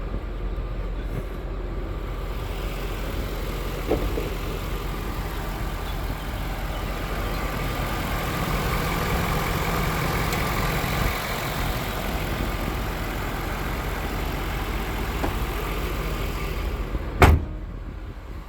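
2001 Jaguar Vanden Plas 4.0-litre V8 idling steadily. A small click comes about four seconds in, and a single loud thump near the end.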